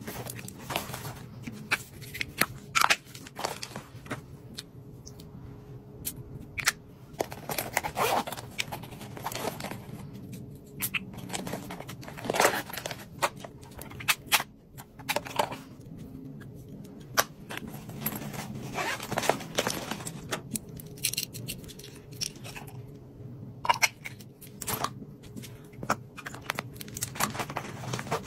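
Hands handling toiletries and a plastic-lined travel makeup case: irregular clicks, taps and crinkling as items are picked up and set in place.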